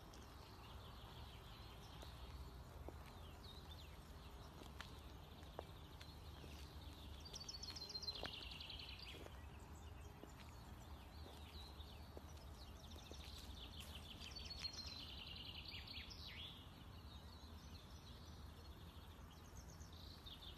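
Faint outdoor ambience with small songbirds singing on and off: two longer phrases of rapid trilled notes, about a third and about two thirds of the way through, over a low steady rumble.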